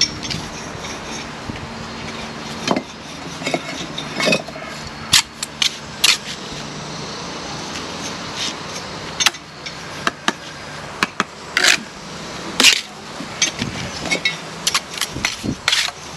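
A steel brick trowel tapping and clinking on bricks and scraping mortar as London Brick flettons are bedded and tapped down. The knocks come irregularly, a few sharp ones standing out, over a steady background hum.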